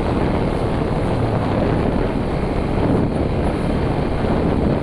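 Motorcycle under way: steady wind rush on the camera microphone, with the engine running underneath.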